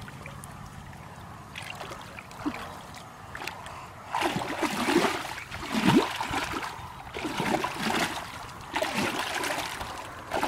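Legs wading through knee-deep muddy water, sloshing and splashing. It is fairly quiet at first, then comes in repeated uneven sloshes from about four seconds in.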